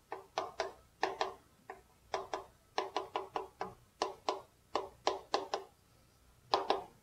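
Chalk writing on a chalkboard: a quick run of short taps and scratches, a few a second, with a brief pause near the end.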